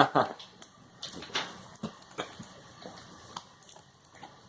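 Packing tape being torn off and a cardboard toy box being pulled open by hand: irregular small clicks, scrapes and crinkles.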